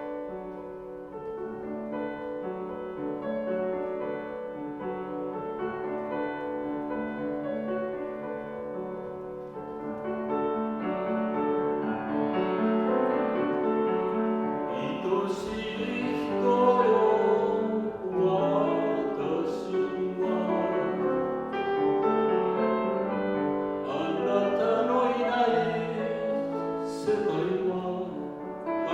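A man singing a Japanese song in a classical, operatic style with piano accompaniment; his voice comes through with strong vibrato in the second half.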